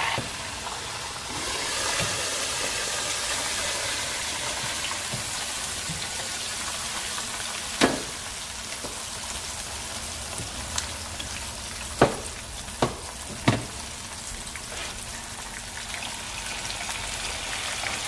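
Whole fish frying in hot oil: a steady sizzle, with several sharp clicks in the middle stretch.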